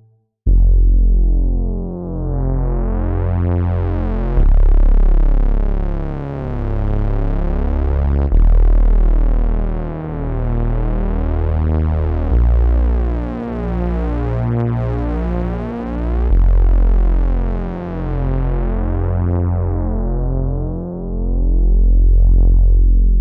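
Late-80s-style synthesizer pad from the Tracktion Collective Beta Maxed sound pack, playing sustained chords over a deep bass note that changes about every four seconds. It comes in suddenly, grows brighter over the first several seconds and slowly darkens again near the end.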